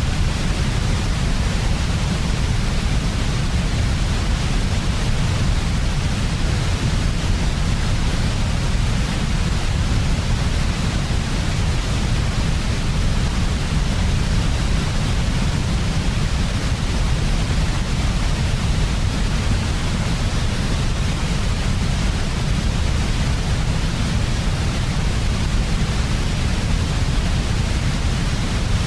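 Steady white noise for sleep: an even, unbroken hiss with a deeper rumble underneath, unchanging throughout.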